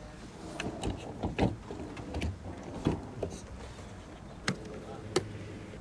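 A few sharp clicks and knocks from a hand handling a 1/8-scale RC crawler truck's plastic body and chassis, over a low steady hum.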